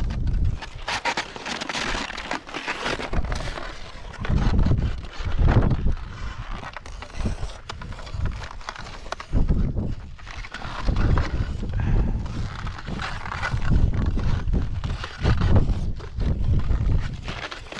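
Skis scraping and hissing over snow during a descent, with wind rumbling on the camera's microphone in repeated gusts every second or two.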